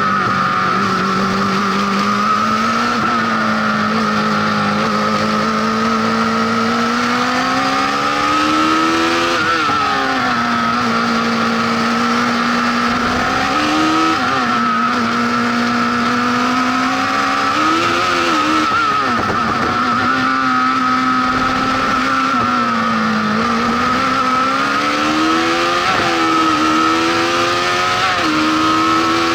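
Honda CBR1100XX inline-four motorcycle engine in a lightweight Fiat 126-based prototype, driven hard. Its pitch climbs and then drops sharply several times as it revs up and comes off, with a steady high whine over it.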